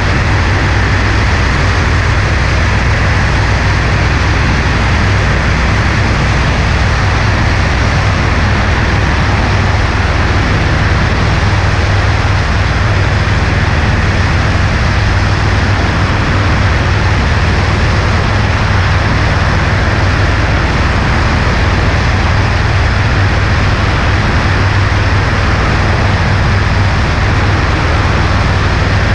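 Cessna 140A light aircraft in flight: steady drone of its piston engine and propeller mixed with rushing wind noise, with no change in pitch or level.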